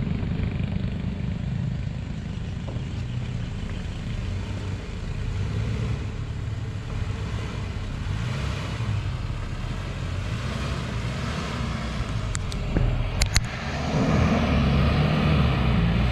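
A Mitsubishi Pajero 4x4's engine running steadily as the vehicle crawls over rough, rutted dirt, growing louder near the end as it comes close. A few sharp knocks come about two-thirds of the way in.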